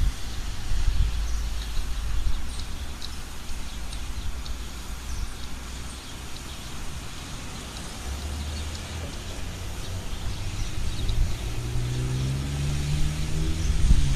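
Street traffic on a wet road: cars and trucks drive through an intersection with a steady low engine rumble. Near the end a vehicle's engine rises in pitch and grows louder as it accelerates away.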